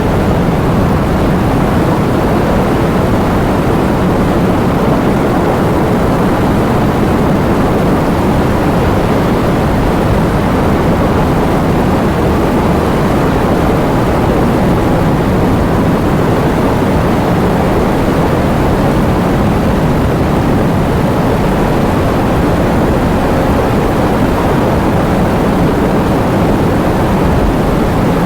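Heavy rain falling in a steady, dense downpour, a loud even hiss and rumble without let-up.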